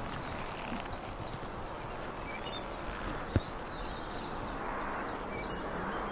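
Footsteps on wooden boardwalk planks, with one sharp knock of a step a little past halfway, over a steady outdoor hiss and small birds chirping.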